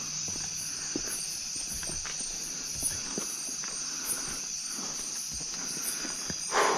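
Insects and crickets chirping steadily: a constant high drone with quick repeating chirps above it. Faint scattered steps are heard, and a brief louder rustle comes near the end.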